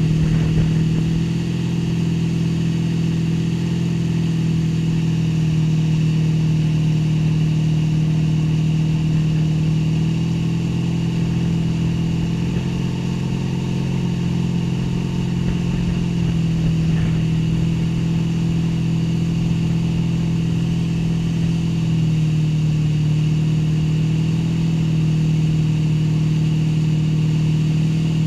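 Motorboat's engine running steadily at speed, a strong droning note that rises and dips slightly in pitch, over a steady rush of water from the wake.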